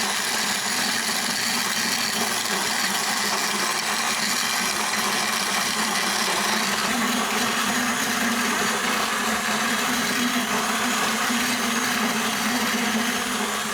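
KitchenAid stand mixer with a grain-mill attachment running steadily, its motor driving the burrs as they grind dried feed corn into flour, with a low hum that grows a little stronger about halfway through.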